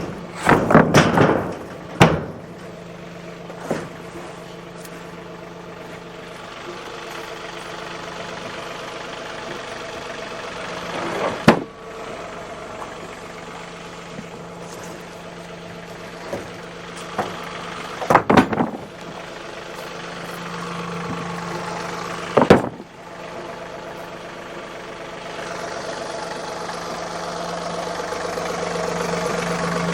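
An engine running steadily at idle, growing a little louder near the end, with a few sharp knocks or bangs scattered over it: several in the first two seconds, then one after about eleven seconds, a quick cluster after about eighteen, and one after about twenty-two.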